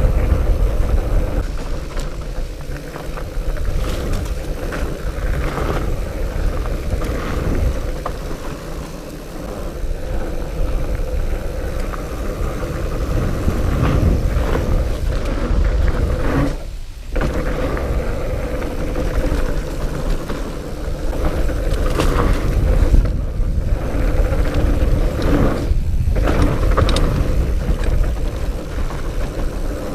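2018 Diamondback El Oso Tres fat bike riding singletrack: a steady rumble of its wide tyres on dirt, mixed with wind noise. Short rattles and knocks come over bumps, and the sound drops out briefly about halfway through.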